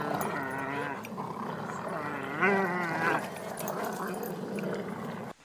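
Dogs growling and whining during a playful tug-of-war, in drawn-out calls that rise and fall in pitch. The sound cuts off suddenly near the end.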